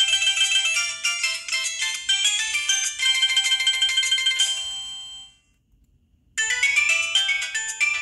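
Samsung SGH-T629 mobile phone ringtones: a quick, bright electronic melody of many short notes fades out about five seconds in, and after a gap of about a second another quick melody begins.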